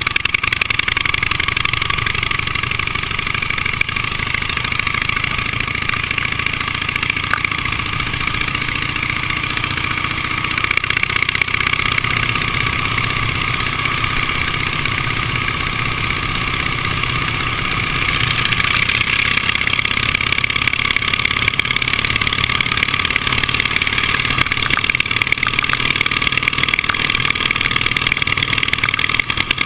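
Vintage motorcycle engine running steadily under way, picked up by the on-board camera together with a constant rush of wind noise. It gets a little louder about eleven seconds in and again around eighteen seconds.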